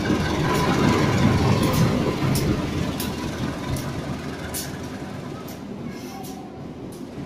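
CC 201 diesel-electric locomotive running past close by, its low rumble loudest in the first two seconds. Then the passenger coaches roll by, their wheels clicking over the rail joints about once a second as the sound slowly fades.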